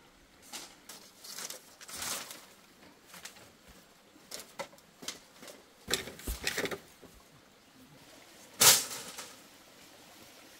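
Cut bamboo poles knocking and rattling as they are handled and carried, with scattered clicks and rustles and one loud knock about three-quarters of the way through.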